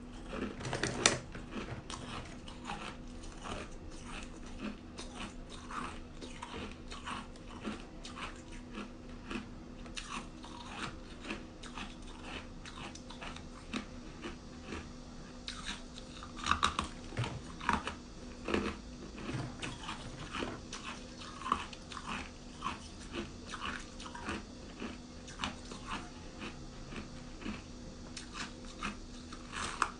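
Ice being bitten and chewed: a long run of irregular sharp crunches, some louder than others, close to the microphone.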